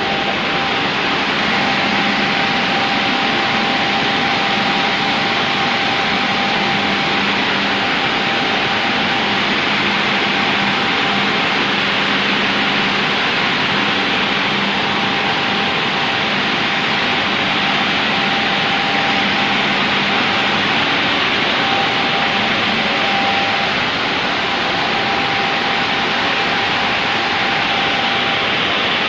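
Glass washing machine running with a loud, steady noise and a faint steady whine.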